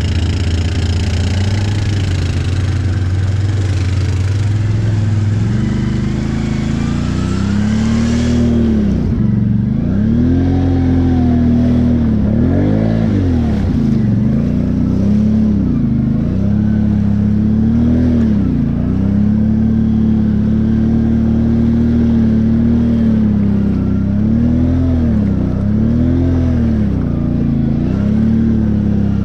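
ATV engine, heard from the quad carrying the camera: it runs steadily at first, then from about eight seconds in revs up and down over and over under load through mud holes.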